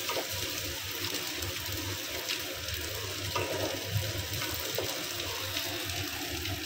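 A little hot water added to spiced masala frying in a wok, bubbling and sloshing as a wooden spatula stirs it in.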